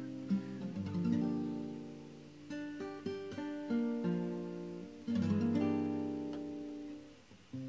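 Background music: chords on a plucked string instrument that ring out and fade, struck afresh about a second in and again about five seconds in.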